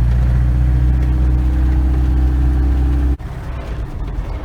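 DAF 400 panel van's engine running steadily while driving, a loud low drone heard from inside the cab. About three seconds in it drops suddenly to a quieter, rougher running sound.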